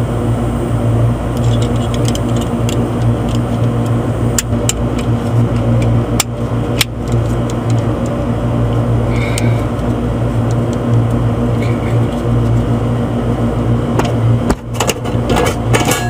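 Steady low machine hum with scattered clicks and knocks from the air conditioner's outdoor disconnect box being worked by hand to pull a stuck disconnect. There is a cluster of sharper clicks near the end.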